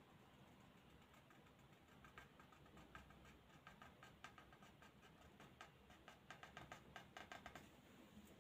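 Faint scratching ticks of a qalam's cut nib dragging across paper while a calligraphy letter is written. The ticks come thicker and louder near the end, then stop as the pen lifts.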